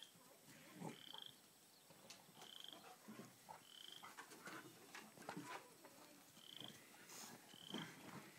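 Near silence with a faint, short, buzzy trill repeated about six times at uneven one-to-two-second gaps: a small animal calling. Soft rustles and knocks fall in between.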